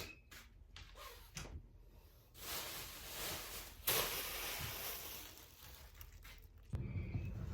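Rustling and handling noises with a single sharp knock about four seconds in, then a low rumble near the end.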